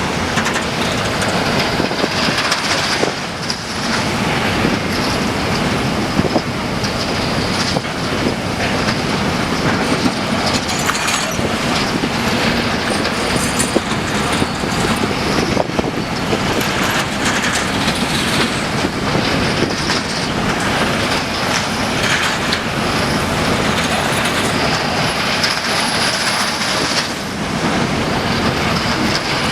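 Freight train wagons rolling past, a steady rumble of steel wheels on the rails with rapid clicking at the rail joints and a high wheel squeal at times.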